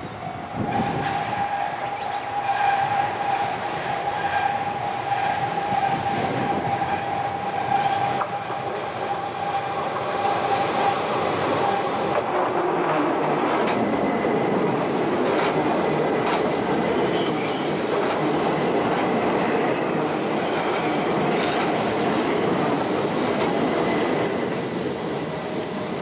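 Keihan Keishin Line electric train approaching on a sharp curve, a steady high whine carrying for the first dozen seconds. About halfway through it gets louder as the cars pass close, with rumbling, wheel clatter and high squeals coming and going, then fades near the end.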